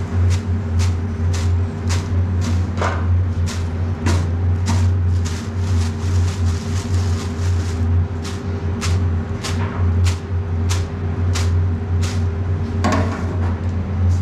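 Steady low hum of kitchen machinery, with sharp knocks coming about twice a second and a brief scrape near the end.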